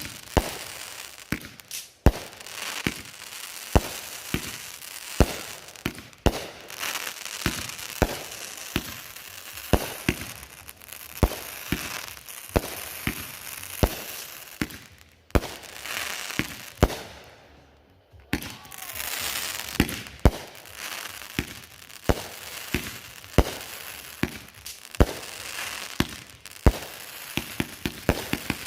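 Consumer firework cake ('Atom Bomb') firing a rapid series of shots and aerial bursts, about one to two loud bangs a second with crackling in between and a couple of brief lulls.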